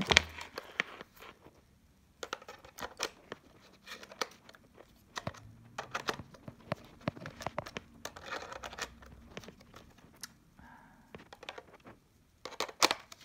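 Irregular light clicks, taps and rustling from handling a vintage Topcon lens and SLR body as the lens is fitted onto the camera's bayonet mount.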